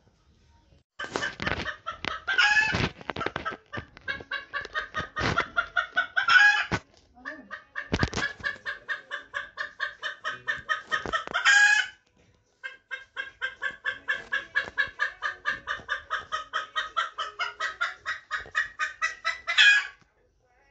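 Sabelpoot (booted bantam) hen's egg song: four long runs of rapid clucks, about four a second, each ending in a louder, drawn-out higher squawk. This is the cackle a hen gives around laying an egg.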